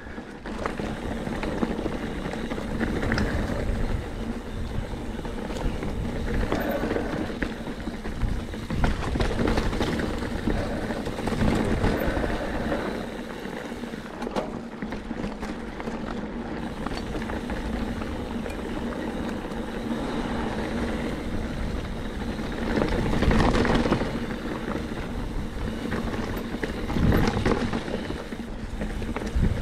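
Mountain bike being ridden over a rocky dirt trail: tyres rolling over rock and gravel and the bike rattling, a steady noisy rumble that surges louder a few times, most of all near the end.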